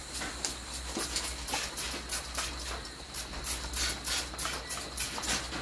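Aerosol spray paint can sprayed in quick short bursts, about three or four a second, dabbing paint on in random spots.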